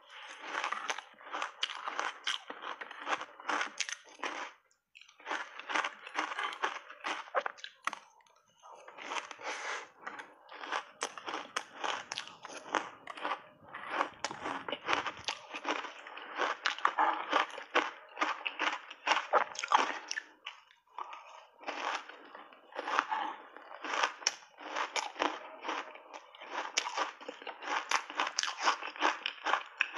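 Crunching and chewing of crushed ice soaked in matcha tea, bitten off in big mouthfuls: dense runs of crisp crunches with a few brief pauses between bites.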